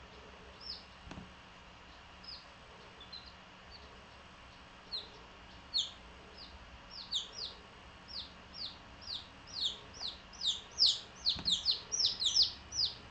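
Japanese bantam chicks peeping: short, high peeps that drop in pitch. They are scattered at first, then come thicker and louder from about five seconds in, several a second by the end.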